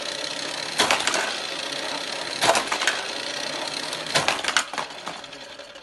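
Hot Wheels Scorpion Speedway's motorized booster whirring steadily while a toy car laps the track, clattering through the booster about every one and a half to two seconds. The whir quietens near the end.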